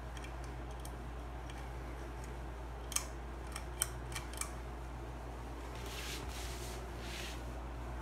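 Hampton Bay St. Claire 52-inch ceiling fan running at medium speed, a steady low motor hum. A few light clicks come about three to four and a half seconds in, and faint soft swishes come near the end.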